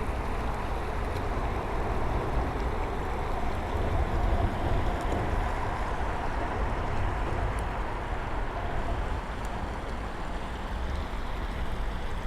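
Steady rushing noise of flowing creek water.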